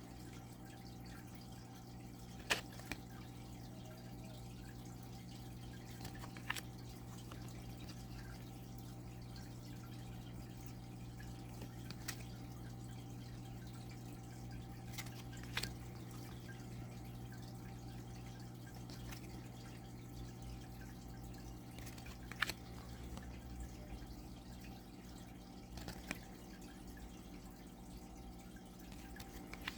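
Thick cards from a pocket oracle deck being handled one at a time, a short sharp tap or click every few seconds, over a steady low hum.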